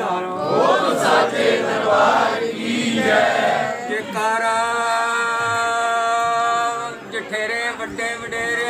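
A group of worshippers' voices chanting a prayer together. A long drawn-out note is held steady for about three seconds midway.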